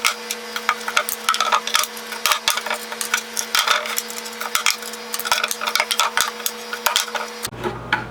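Rapid, irregular clattering and tapping of tools and small metal hardware against wood, over a steady hum.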